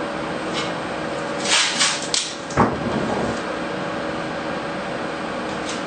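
Blue painter's tape pulled off the roll in a few short rasping rips about one and a half seconds in, followed by a single knock, over a steady room hum.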